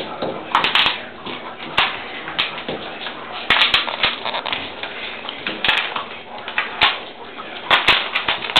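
Puppies crunching and gnawing ice cubes, with pieces of ice clicking and skittering on a tile floor: irregular sharp clicks and crackly crunches.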